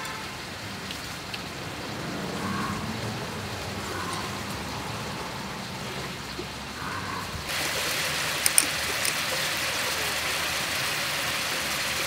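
Beef and vegetables sizzling in a hot grill pan over a portable gas stove, a steady hiss. About seven and a half seconds in, the sizzling suddenly gets much louder and brighter, with a couple of sharp clicks a second later.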